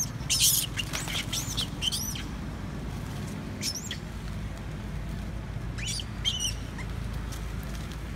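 Baby monkey giving short, high-pitched squeals in several quick clusters, each call rising and then falling in pitch.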